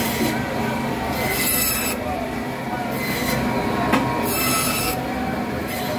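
Electric band saw running, its blade giving short shrill screeches about a second apart as it cuts a whole fish crosswise into steaks through skin and backbone, over the machine's steady hum.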